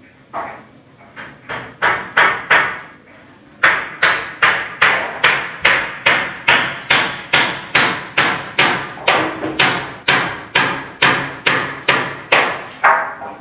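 Hammer blows: a few irregular strikes at first, then a steady run of about two and a half blows a second that stops just before the end.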